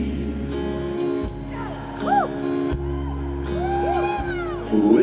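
Live band playing a short instrumental passage between sung lines of a slow cowboy ballad: held chords over a steady bass. Several rising-and-falling whoops sound on top.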